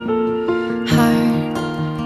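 Gentle background music with plucked notes, struck about every half second.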